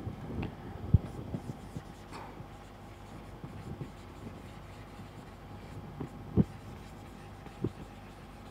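Marker pen writing on a whiteboard: faint scratchy strokes and soft taps, the sharpest tap about a second in and another about six and a half seconds in.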